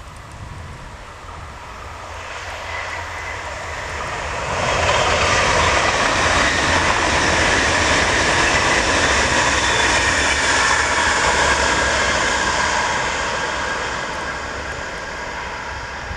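PKP Intercity ED250 Pendolino electric high-speed train passing at speed: a rushing noise with a faint steady whine that builds over a few seconds, stays loud for about eight seconds, then fades away.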